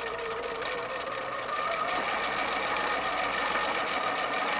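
Electric home sewing machine running steadily as it stitches a seam through layered cotton quilt pieces, a little louder from about a second and a half in.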